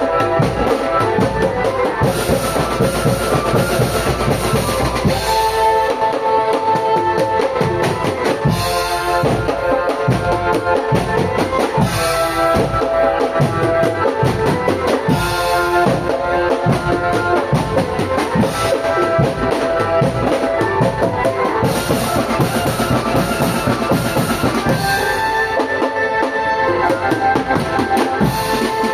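Marching drum band playing: regular bass and snare drum strokes under a melody of steady held notes.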